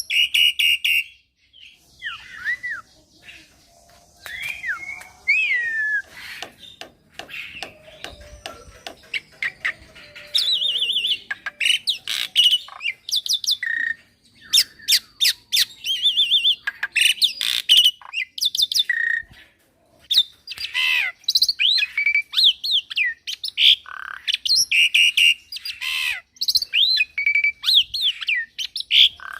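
Young black-winged starling (jalak putih) singing a long, varied song: gliding whistles, harsh squawks and rapid clicking runs, packed with mimicked phrases ("full isian").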